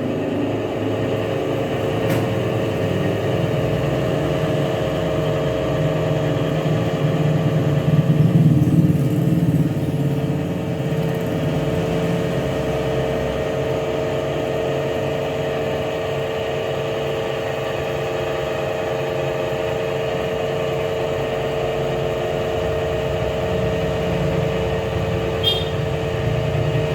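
Pipe-rolling machine running steadily, its motor and drive giving a constant hum with a low rumble that swells briefly about a third of the way in.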